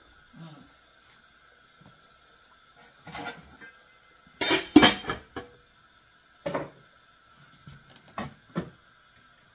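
Kitchenware being handled: a series of separate knocks and clatters of pots, lids or dishes, the loudest a pair of clanks about four and a half seconds in.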